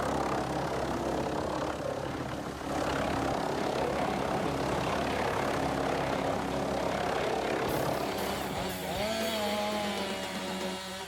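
Engine of a heavy wood-chipping machine running steadily under load. Past the middle a wavering whine rises and falls in pitch above the steady engine note.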